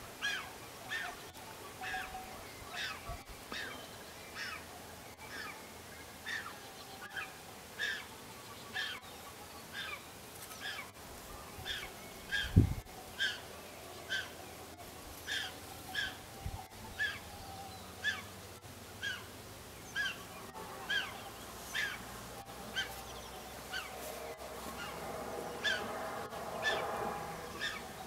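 Eurasian griffon vulture chick begging at the nest: a long, regular series of short calls, about one and a half a second, at a feeding. A single loud low thump about halfway through.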